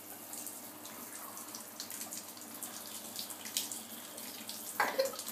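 Water spraying from a handheld shower head held in a small child's hands: a steady hiss with irregular splashes. A short, sharp sound near the end.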